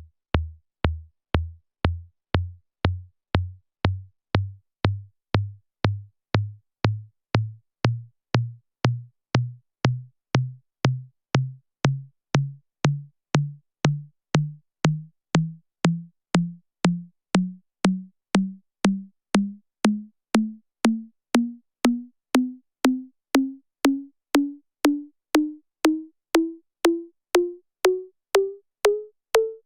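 Synthesized electronic tom hits, struck at a steady pace of a little under two a second. Each is a short pitched hit with a sharp click at the start that dies away quickly. The pitch climbs gradually through the run, from very deep to a mid tone.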